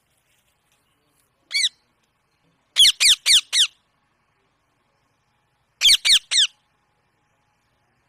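Rose-ringed parakeet giving short, shrill calls that fall in pitch: a single call, then a quick run of four, then three more.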